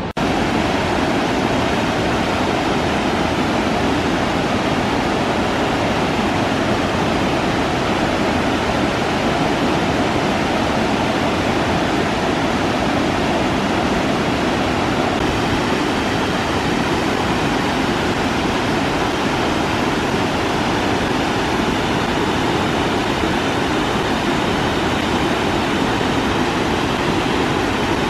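Waterfall rushing steadily and loudly, whitewater pouring over dark rock ledges in an even, unbroken wash of noise.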